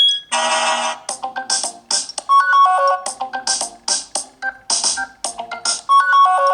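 Sony Xperia E5 stock ringtone playing: a new tone starts a fraction of a second in with a full chord, then runs into a bright synthesized melody over short percussive hits, its phrase repeating about every three and a half seconds.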